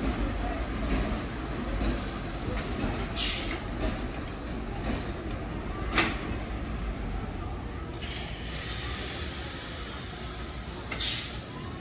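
Vintage R9 subway train pulling away from the station and running off down the track, a steady rumble of wheels and motors. Short bursts of hiss come about three seconds in and near the end, and a sharp click about six seconds in.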